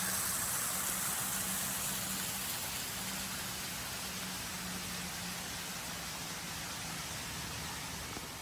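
Small alpine waterfall rushing, a steady splashing hiss of falling water that slowly gets quieter.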